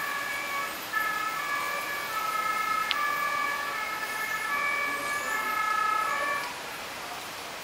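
Several two-tone fire-engine sirens of the German kind sounding at once, each switching between a high and a low note out of step with the others; they cut off about six and a half seconds in.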